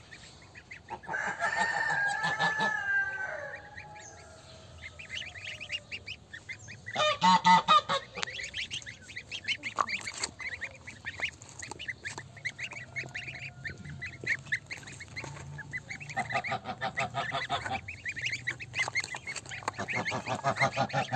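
Newly hatched goslings peeping rapidly and continuously, with louder goose honking calls breaking in several times, the loudest about seven seconds in.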